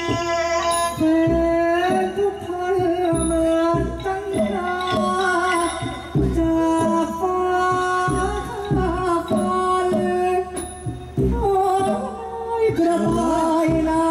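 Likay theatre singing: a performer's voice holding long notes with a wavering pitch over a Thai ensemble accompaniment with regular low drum beats.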